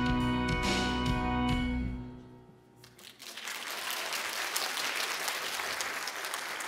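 The song's final chord of instrumental accompaniment is held and fades out about two seconds in; after a brief lull, audience applause starts and goes on steadily.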